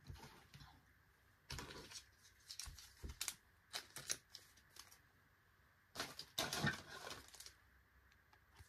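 Trading cards being handled and shuffled: soft rustles and light card-on-card clicks in a few short flurries with quiet gaps between them.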